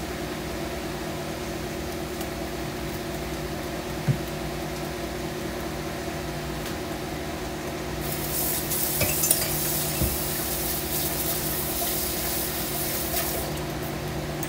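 Electric stand mixer running on low speed, its beater turning through thick pound cake batter to blend in the just-added extracts; the motor hum starts at the very beginning and holds steady. A single click about four seconds in, and a hiss joins about eight seconds in.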